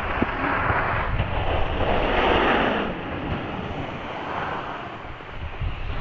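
Edges scraping and sliding over packed, chopped-up snow in a steady hiss that swells through the first half and fades off after about three seconds, with wind rumbling on the microphone.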